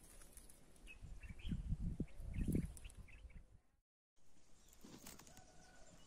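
Faint bird chirps over low rumbling blasts on the microphone, loudest about two seconds in. The sound drops out completely for a moment a little before the middle.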